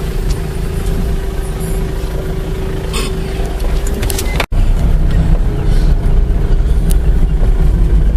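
A motor vehicle's engine running steadily, a low rumble with a steady hum; the sound cuts out for an instant about four and a half seconds in.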